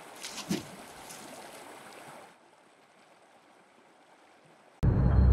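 Rushing water with a few short knocks about half a second in. The water cuts off abruptly after about two seconds, leaving near silence, and loud music starts suddenly near the end.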